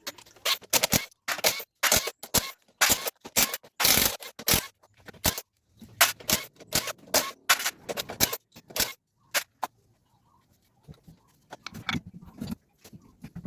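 Irregular clicks, knocks and scrapes of tools and transmission parts being handled, dense at first, with a short lull about ten seconds in before lighter handling noises resume.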